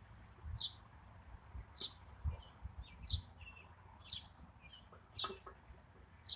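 A bird chirping faintly in the background, a short high falling chirp about once a second, over faint soft knocks of plastic being handled.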